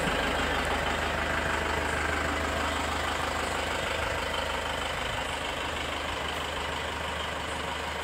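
Tata 407 minibus engine idling steadily, growing slightly fainter toward the end.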